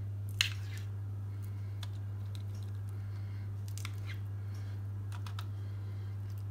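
Steady low hum with a few light, scattered clicks and short scrapes; the loudest click comes about half a second in.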